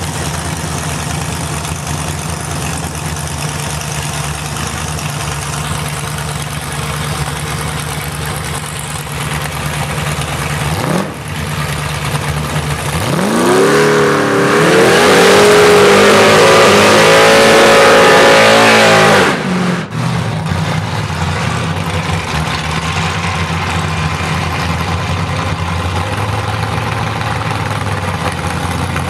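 Drag-race cars idling at the starting line. About 11 s in an engine blips up, and from about 13 s the engines rev hard to a high held note with a loud hiss of spinning tyres for about six seconds, a burnout that leaves the lane in smoke. This cuts off sharply, and steady idling follows.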